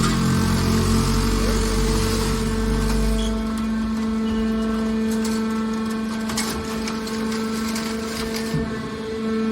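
Hydraulic scrap-metal baler running with a steady motor hum. A heavy low rumble stops about three seconds in, and a few short metallic knocks follow.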